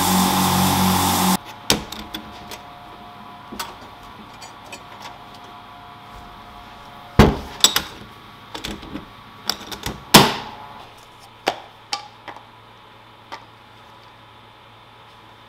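Abrasive blast cabinet blasting a steel axe head, a steady loud hiss that cuts off suddenly about a second in. Then scattered knocks and clunks as the cabinet door is handled, the loudest two about seven and ten seconds in, the second ringing briefly.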